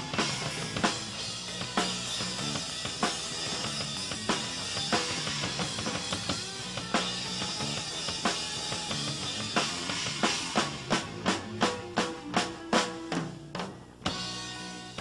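Live rock band playing an instrumental passage: Pearl drum kit with bass drum and snare under electric guitar. In the last few seconds the drums play a run of evenly spaced hits, which breaks off just before the end.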